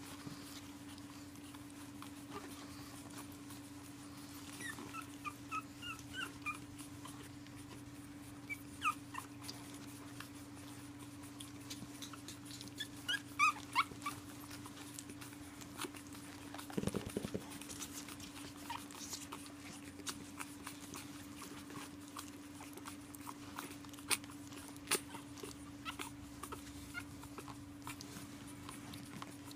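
Pug puppies whimpering and squeaking in short, high-pitched cries that come in little clusters, loudest about 13 to 14 seconds in, over a steady low hum. There is a dull thump about 17 seconds in.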